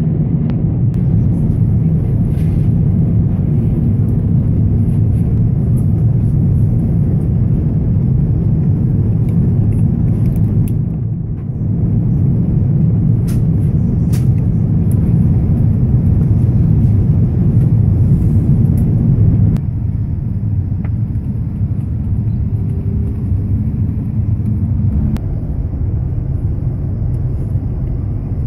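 Steady low rumble of an Airbus A350-900 airliner's cabin in flight during descent: engine and airflow noise heard from a passenger seat. It eases a little about twenty seconds in, with a few faint clicks.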